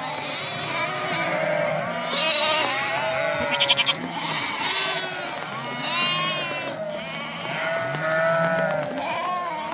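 A flock of sheep bleating, many calls overlapping one another without a break.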